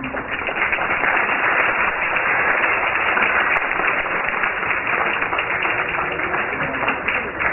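Audience applauding steadily, the applause that greets the end of a ballet performance.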